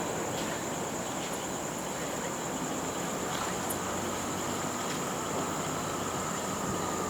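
Distant rumble of a departing Boeing 787-9's jet engines, dying away to a steady low roar after the takeoff. A steady high insect trill runs throughout.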